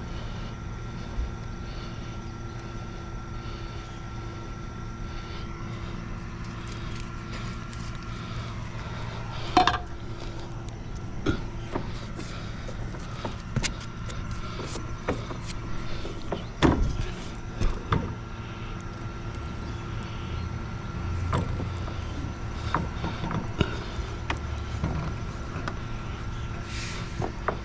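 Scattered knocks and clicks as PVC conduit is handled and fitted against a house's siding and soffit, over a steady mechanical hum.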